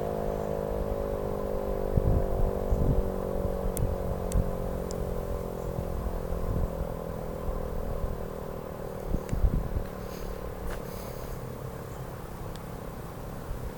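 Model 5A outdoor warning siren winding down after its test, its multi-tone wail slowly falling in pitch and fading as the rotor spins down. A few low thumps come about two seconds in and again around nine seconds.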